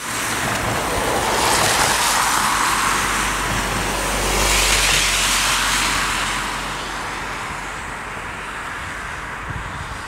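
Road traffic passing, tyre and engine noise swelling twice and then easing off.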